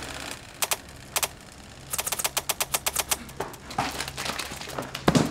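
Ice cubes clattering onto a wooden floor as sharp clacks. Two single hits come about half a second apart, then a fast run at roughly eight a second that thins out. A heavier thud near the end is the loudest sound.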